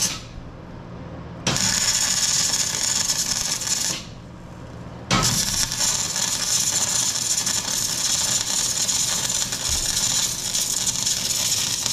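Arc welding on the steel blade of a Komatsu D39 dozer: the steady crackling sizzle of the arc. It stops right at the start, welds from about one and a half to four seconds in, pauses for about a second, then welds on through the rest. A low hum is left in the pauses.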